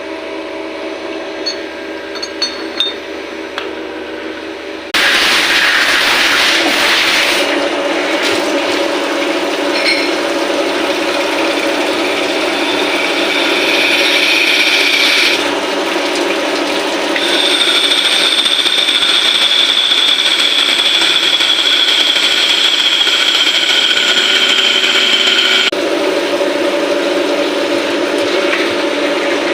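CNC lathe machining a 316 stainless steel camlock fitting. The machine runs with a steady hum, then about five seconds in a louder cutting noise sets in. Partway through a high whine comes in and falls slightly in pitch, and near the end the sound settles back to the steady hum.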